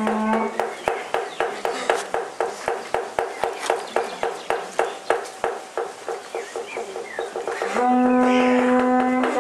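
Rhythmic knocking, about three sharp strikes a second. About eight seconds in, a long steady horn note begins and holds, with the knocking going on beneath it.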